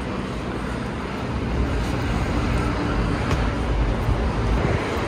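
Steady low rumble of outdoor city traffic, slowly getting louder.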